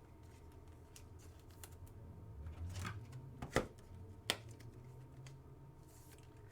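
Trading cards being handled and flipped through: faint rustling with two short, sharp clicks a little past the middle.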